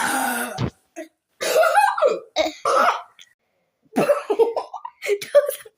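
A girl gives one hard cough while chugging carbonated soda, likely catching the fizz, followed by several shorter, breathy vocal sounds.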